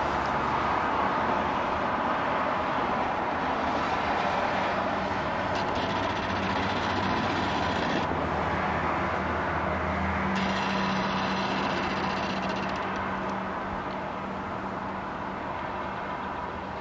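Distant road traffic: a steady wash of engine and tyre noise with a low hum, easing slightly near the end.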